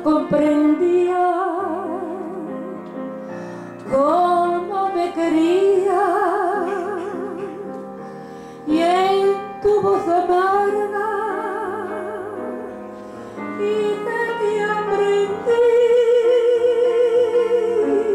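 A woman singing in a classical, operatic style, holding long notes with wide vibrato in several phrases, accompanied by a grand piano.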